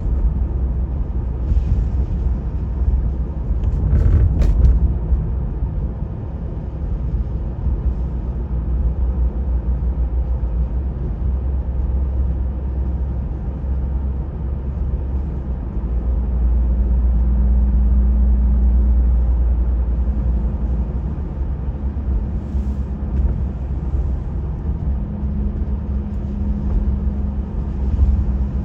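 Steady low rumble, as of road traffic heard outdoors. A faint steady hum joins in about two-thirds of the way through, and there is a brief click a few seconds in.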